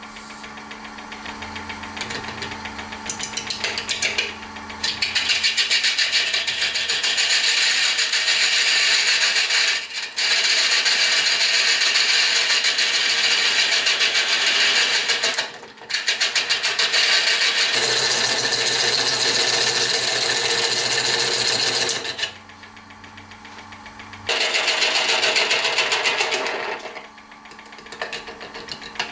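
Wood lathe running, with a gouge cutting a spinning resin-and-burl hybrid blank: a loud scraping hiss with a fast flutter, which grows in over the first few seconds and breaks off briefly several times as the tool comes off the work. A steady motor hum runs underneath.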